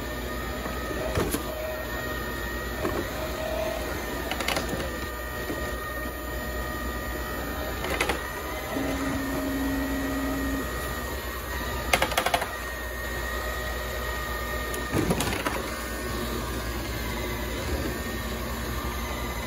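Motor-driven spinning mop scrub head running steadily on concrete, a continuous mechanical whir with a sharp click or knock every few seconds, several in a row about twelve seconds in.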